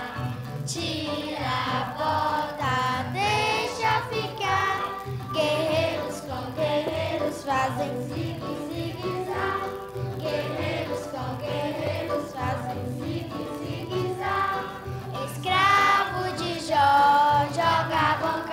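Children's choir singing a song in unison over an accompaniment with a steady repeating bass line.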